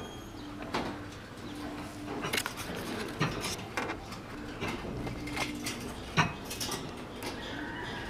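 Irregular metallic clicks and scrapes of tie wire being twisted around crossing steel rebar to fasten the cage.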